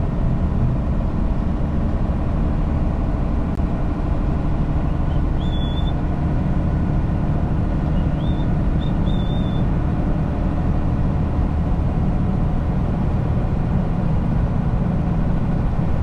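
Steady engine and road noise of a semi-truck driving on the highway. A few faint, brief high chirps occur around six and nine seconds in.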